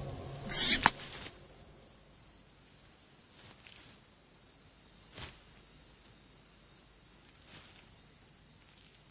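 A short rush of noise ending in a sharp crack about a second in, then faint, steady insect chirping with a soft thud near the middle.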